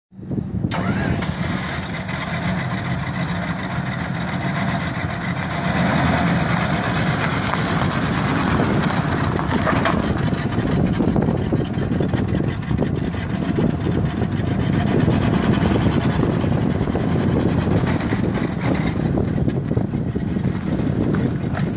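A 1995 Ford F-150 pickup's engine idling steadily.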